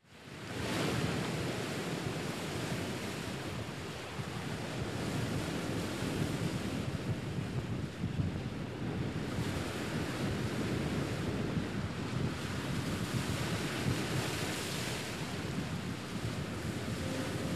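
Sea waves and wind: an even rushing wash that fades in at the start and swells and eases every few seconds.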